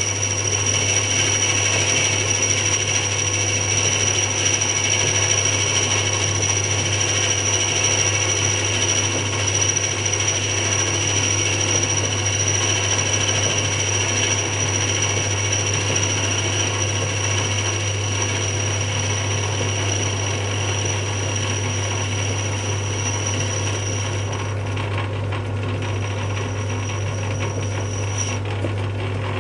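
Metal lathe running while facing a cast pulley blank: a steady motor hum with a thin high whine and hiss from the cut. The whine breaks off near the end, comes back briefly, then stops.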